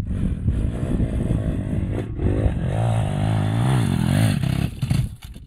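StompR 140cc pit bike's single-cylinder engine revving hard, its pitch climbing and falling away in the middle, then easing off near the end.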